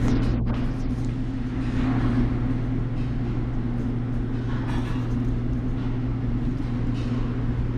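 Steady low mechanical hum holding one even pitch, with a fainter higher overtone.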